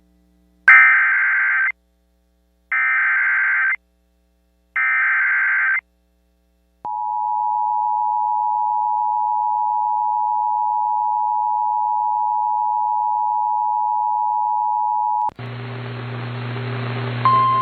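Emergency Alert System header: three one-second bursts of warbling digital data tones, then the two-tone EAS attention signal, a steady dual tone held for about eight seconds before it cuts off. A hissy, humming background follows, with a steady tone starting near the end.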